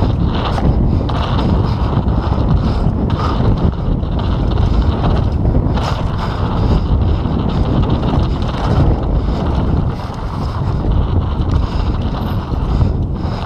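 Mountain bike ridden fast down a dirt forest trail: wind buffeting the camera microphone with a steady low rumble from the tyres, and frequent short clatters as the bike hits bumps.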